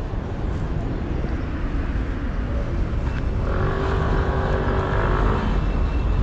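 Tram running with a steady low rumble; from about three and a half seconds in until shortly before the end, a high-pitched squeal of the wheels on curved track rises over it as the tram turns.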